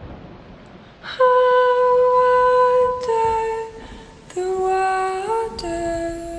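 Background music: a slow melody of long held notes that step from one pitch to the next, beginning about a second in.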